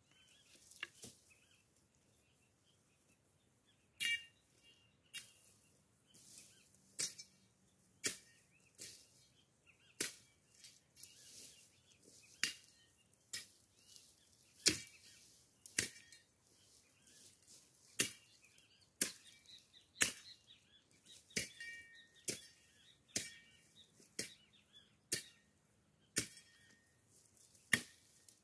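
Machete chopping dry brush and weeds in repeated sharp whacks, about one a second, sparse at first and steady from about four seconds in.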